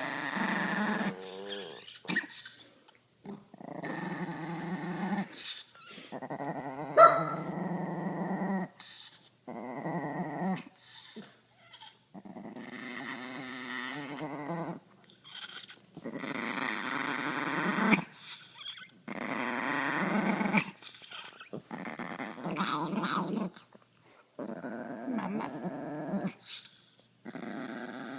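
A Pomeranian growling and wheezing in a series of bouts of one to three seconds, separated by short pauses.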